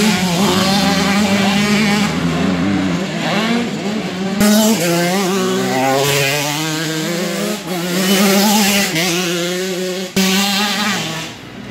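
Several motocross bikes racing, their engines revving up and dropping back over and over as the riders open and close the throttle and shift gear; the overlapping engine notes rise and fall in pitch.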